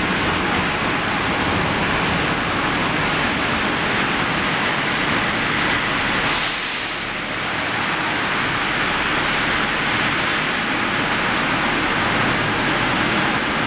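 Steady machinery noise of a hot section rolling mill for angle steel, with its roller tables and mill drives running. A brief hiss comes about six seconds in.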